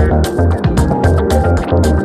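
Background electronic music with a steady beat: pulsing bass and regular high percussion hits.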